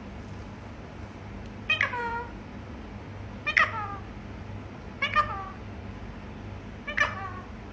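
A pet parrot mimicking a cat's meow: four short meows spaced about one and a half to two seconds apart, each sliding down in pitch.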